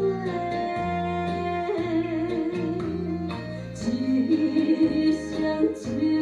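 Taiwanese Hokkien pop song in tango rhythm: a sung melody with a wavering held note about two seconds in, over guitar and a repeating bass line.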